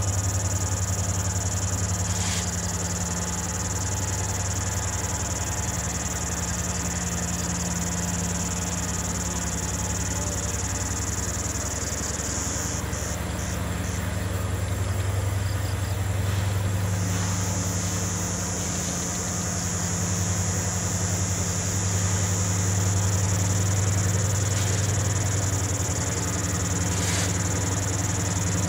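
Diesel engines of double-headed CC 205 diesel-electric locomotives running at low throttle as the loaded coal train creeps forward, a steady low drone. A steady high trill of insects sits over it, breaking up and fading for a few seconds about halfway through.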